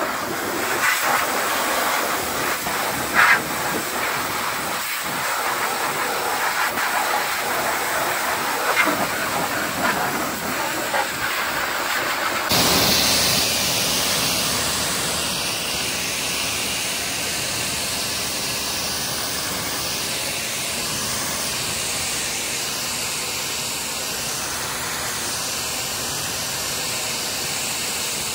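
High-pressure washer jet hissing as it blasts the tractor's rear hitch and tyres, uneven with a few sharp splatters. About halfway through it changes to a steadier, brighter hiss as the spray is aimed over the cab roof.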